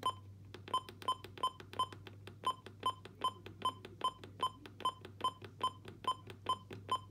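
Midland WR400 weather radio's button beeps: a short, high electronic beep about three times a second as the alarm time is stepped through.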